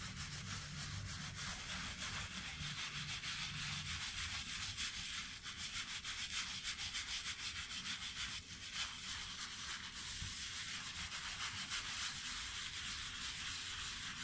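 Wet shoe brush scrubbing a sneaker's upper in quick circular strokes with shoe-cleaning solution: a steady, fast brushing and rubbing of bristles on the shoe.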